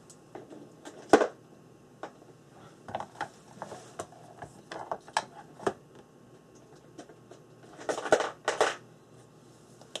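Art supplies being handled on a work table: irregular clicks, taps and short clatters, with a sharp clack about a second in and a longer run of clattering around eight seconds.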